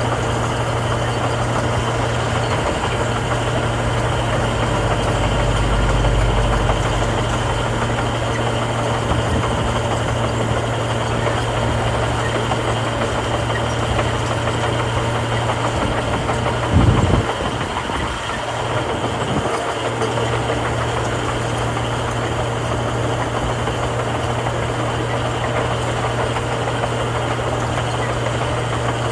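Heavy diesel construction machinery running steadily with a constant low engine note. About seventeen seconds in there is a brief louder burst, after which the engine sound dips for a couple of seconds before settling again.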